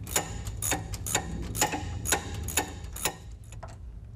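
Car lift being raised, its safety latches clicking about twice a second over a steady low hum.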